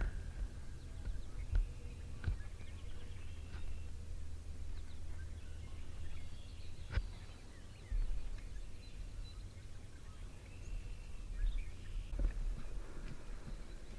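Outdoor morning ambience: faint bird calls come and go over a steady low rumble, with a few sharp clicks, the clearest about a third of the way in and again about halfway.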